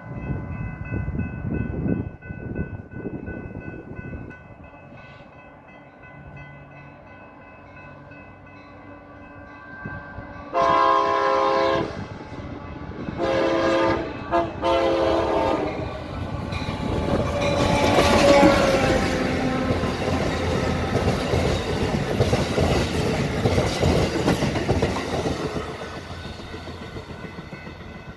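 Amtrak passenger train at a grade crossing: the crossing bells ring steadily, then about ten seconds in the locomotive horn sounds the long, long, short, long crossing signal. The train then passes close by, wheels clacking over the rail joints, and fades near the end.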